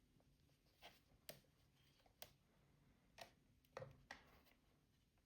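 Near silence with about six faint, short plastic clicks and taps from a plastic dinosaur action figure being handled and its joints moved.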